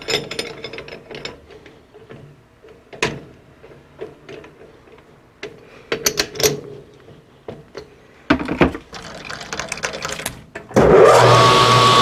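Metal clinks and knocks as a bronze rod is fitted into a metal lathe's chuck and the jaws are worked with the chuck key. About a second before the end, the lathe starts and runs with a steady whine.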